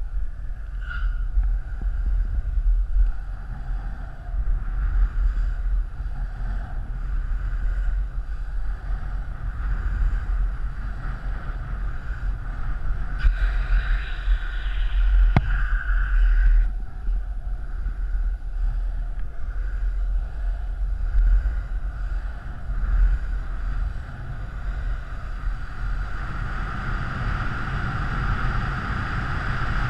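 Wind buffeting the microphone at downhill speed over the steady rolling rush of a penny board's wheels on asphalt. The wheel noise turns harsher for a few seconds about halfway through and grows stronger in the last few seconds.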